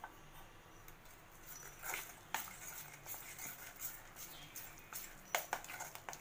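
Steel spoon stirring and scraping thick gram flour batter in a stainless steel bowl: irregular metal-on-metal scrapes and clinks with wet mixing sounds, and a couple of sharper knocks of the spoon against the bowl.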